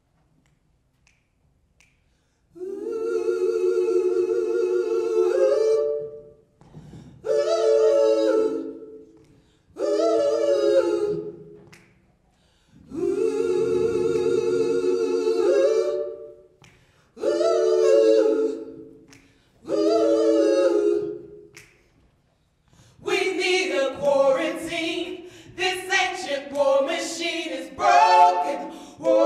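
Female gospel trio singing a cappella in harmony: long held chords alternating with shorter sung phrases, starting after about two seconds of quiet. The last several seconds turn into a busier passage with moving pitches.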